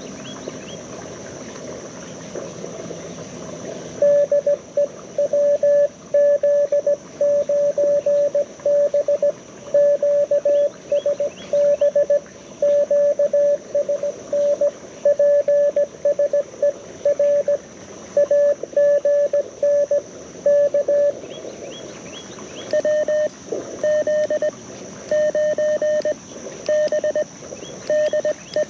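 Morse code (CW) tones from a QRP Mountain Topper transceiver through a small speaker. One station sends a long run of dits and dahs at one pitch starting about four seconds in, then after a short gap another sends at a slightly higher pitch. Creek water runs underneath and is heard alone for the first few seconds, with a steady high hiss throughout.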